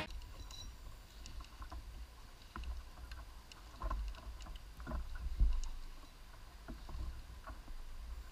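Quiet water sounds around a plastic kayak: small, irregular laps and knocks of water against the hull, with a low rumble underneath and the loudest slap about five and a half seconds in.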